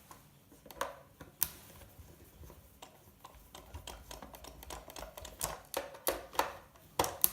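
Irregular sharp plastic clicks and knocks as a gaming steering wheel's plastic casing and parts are handled and worked apart, the loudest about a second and a half in and again near the end.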